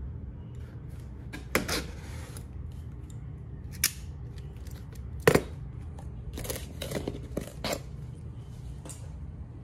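A knife cutting and scraping through packing tape on a cardboard box, in scattered short strokes and clicks, the sharpest about five seconds in. A steady low hum runs underneath.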